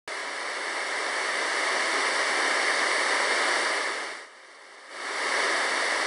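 A steady rushing noise with no distinct tone, starting abruptly. It dips away briefly a little past four seconds in, then comes back.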